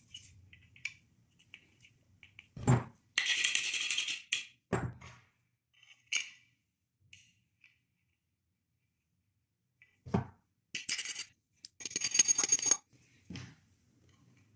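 Hand assembly of a wooden crossbow pistol: a few dull knocks of the wooden stock against the workbench, and twice a second-long spell of bright metallic jingling from small metal hardware being handled.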